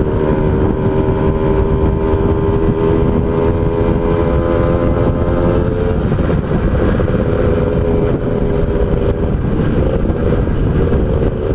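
Suzuki Tornado GS two-stroke motorcycle engine pulling steadily at road speed, with heavy wind rumble on the microphone; its pitch drops slightly about halfway through, then holds steady.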